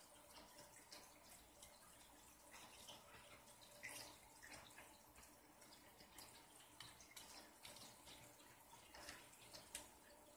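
Near silence with faint, irregular small clicks and taps of RC car parts and tools being handled, a slightly louder click about four seconds in and another near the end, over a faint steady hum.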